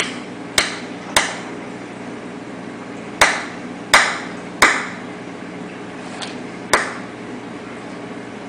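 Peacock mantis shrimp hammering a clam with its club-like appendages: sharp cracks of club on shell. They come as a quick run of three, another run of three about three seconds in, and a single crack near the end, over a steady low hum.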